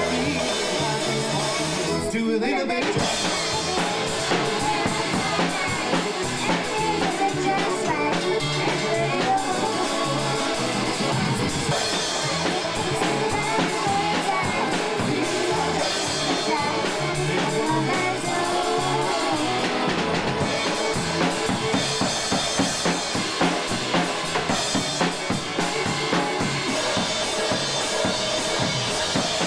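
Drum kit played by a young child, with bass drum, snare and cymbal hits, over a polka-band recording of a country song playing in the room.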